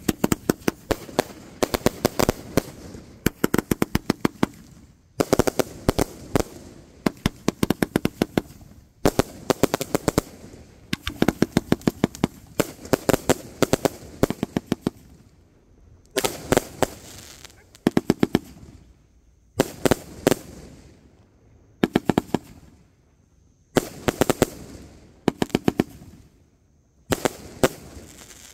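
A Morbius 150-shot firework cake firing: clusters of sharp pops, each cluster a quick string of reports as the shells break into crackling, coming every second or two with short gaps between.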